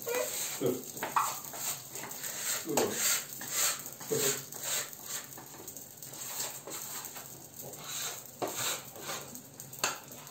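Kitchen clatter: irregular clinks and knocks of dishes and utensils as a countertop is tidied, with a few brief voice sounds in the first seconds.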